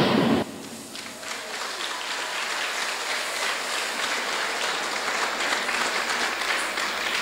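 The dance music cuts off abruptly, then an audience applauds, the clapping building up over the first couple of seconds and carrying on steadily.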